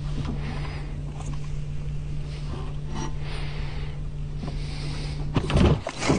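Boat motor idling, a steady low hum under wind and water noise. Near the end come a few loud bumps and rustles.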